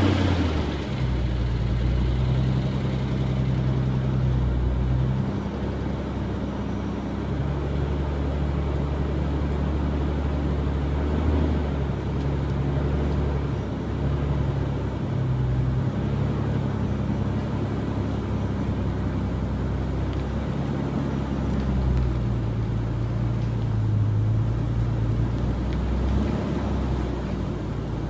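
Nissan 300ZX Twin Turbo's 3.0-litre twin-turbo V6 idling steadily after start-up, its idle speed wandering slightly up and down.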